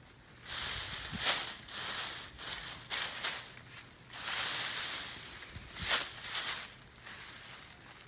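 Irregular rustling and crunching of cut grass and dry plant litter being pushed through and trodden, in uneven bursts of up to about a second with short quiet gaps.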